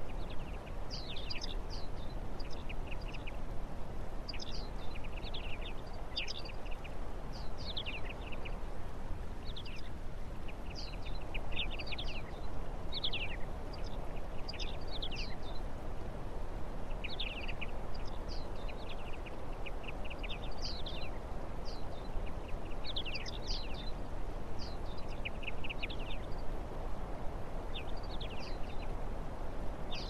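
Small songbirds calling throughout: many short, high chirps and quick downward-sweeping notes. Underneath runs a steady low background rumble.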